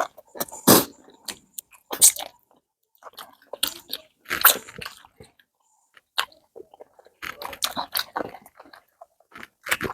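Close-up chewing and biting of people eating rice fufu with okra soup and fish: irregular wet mouth clicks and short crunchy bursts, with a lull in the middle.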